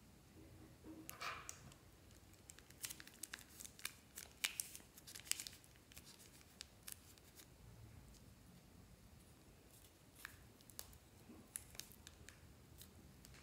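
Plastic piping bag crinkling and crackling as it is squeezed and wrung to push slime out, with a quick string of sharp crackles a few seconds in and a few more near the end.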